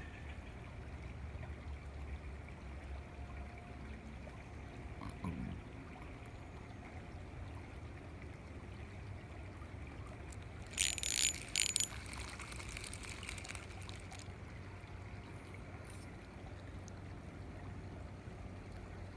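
A small fish splashing at the water's surface for about a second as it is pulled out of the creek on a fishing pole, over a steady low background rumble.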